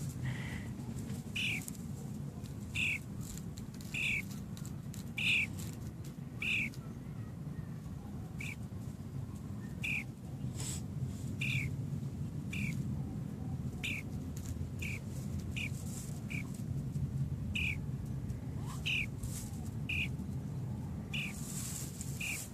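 Young starling giving short, sharp calls over and over, roughly one a second, over a steady low rumble.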